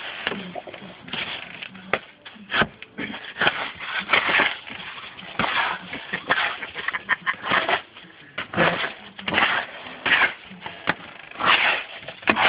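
Boxer puppies digging and nosing in snow: irregular crunching and scuffing noises in short bursts, with a few sharp clicks.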